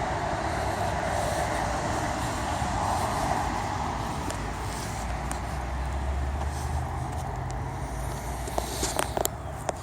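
Steady running noise of a motor vehicle, with a low engine hum coming up about halfway through and a few sharp clicks near the end.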